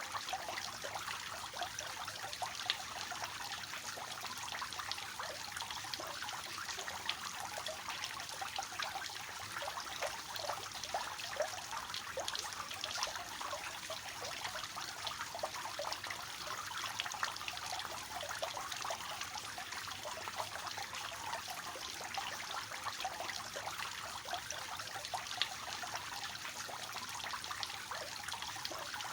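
Water falling and splashing steadily from a three-tier cascade fountain, a soft continuous trickle and splash with many small droplet splashes.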